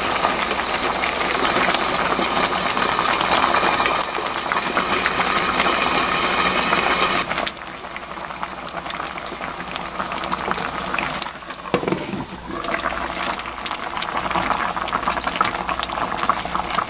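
Mackerel and aged-kimchi braise boiling in a wide pan, a dense bubbling hiss that drops to a quieter level about seven seconds in.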